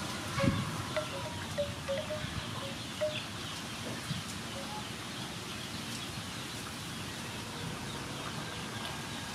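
A run of short, high, chime-like notes through the first four seconds or so, over a steady hiss, while a wooden spoon stirs soup in an aluminium pot. A single low thump comes about half a second in.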